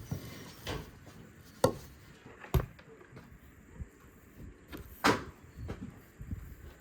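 Handling noises while preparing food: three loud, sharp knocks with a few quieter knocks and clatter between them.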